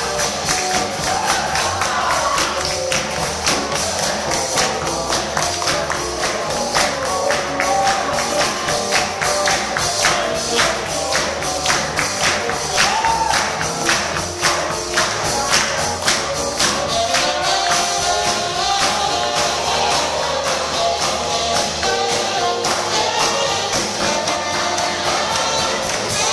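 Live band playing a song with a steady, driving beat of bright percussion strokes under a melody line.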